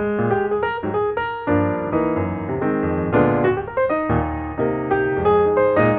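Background piano music: a steady run of notes and chords.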